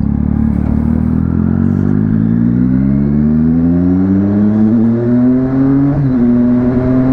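Triumph Street Triple's three-cylinder engine accelerating away from a stop, its pitch climbing steadily for about six seconds, then dipping briefly at an upshift and holding steady.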